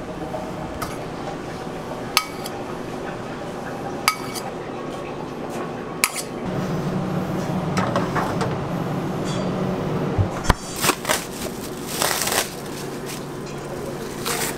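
A metal spatula clinking against a metal baking tray a few times, sharp single clicks about two seconds apart. Then a low steady hum, and louder knocks and clattering as the sheet tray is slid onto the wire rack of a refrigerator.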